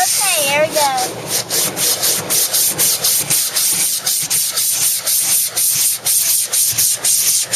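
Automatic car wash brushes scrubbing over the car, heard from inside the cabin as a fast rhythmic swishing, several strokes a second. A few high gliding squeals sound in the first second.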